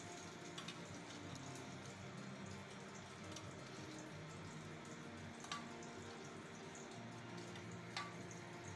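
Faint wet squelching and dripping of hands mixing small raw kechki fish with a yellow spice paste, with a few short, sharper wet clicks.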